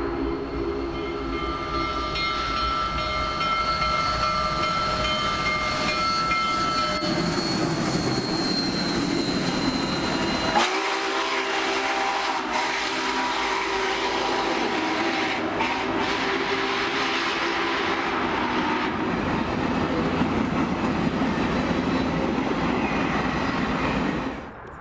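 Train rolling along the rails: a steady rumble and rail clatter, with high steady squealing tones over it for the first ten seconds or so. The sound changes abruptly about ten seconds in, and drops off suddenly just before the end.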